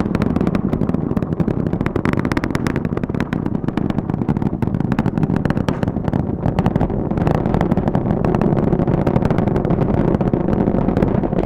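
Space Launch System rocket's two solid rocket boosters and four RS-25 engines during ascent: a loud, steady low rumble full of dense crackling.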